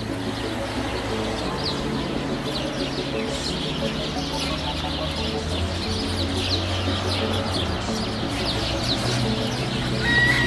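Background music with sustained low notes, overlaid from about a second in by many quick, high bird calls in rapid succession.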